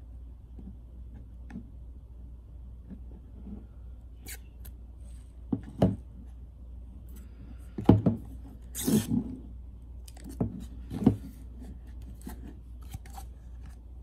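Hard clear acrylic plastic being handled: a few sharp knocks and taps, with short rubbing and scraping sounds, the loudest about eight and eleven seconds in, over a low steady hum.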